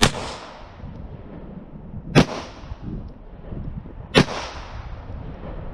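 Three 9mm shots from a Glock 17 pistol, about two seconds apart, each a sharp crack followed by a short echoing tail.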